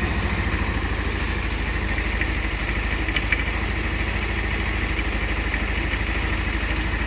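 150cc scooter's single-cylinder engine idling steadily while it warms up after a cold start, running on a new carburettor that the owner says has cured its hard starting.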